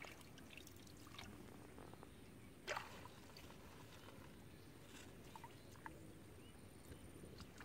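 Faint splashing and dripping of shallow muddy water as hands work a fine-mesh fishing net in it, with scattered small splashes and one sharper splash about three seconds in.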